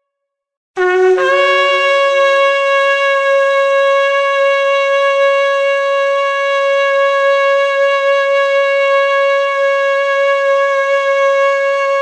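Shofar (ram's horn) sounded in one long blast: it starts under a second in on a short lower note, jumps up almost at once, and holds one steady note without a break.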